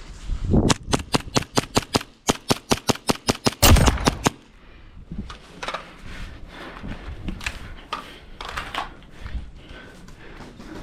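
Airsoft electric rifle, a KWA G36C, firing a rapid string of shots in three quick bursts over about four seconds. Fainter scattered airsoft shots follow.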